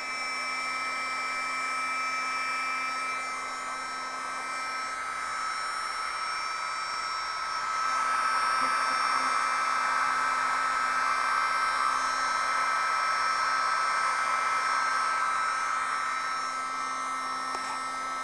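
Mini USB vacuum cleaner running: a steady small-motor whine over rushing air, growing louder about eight seconds in.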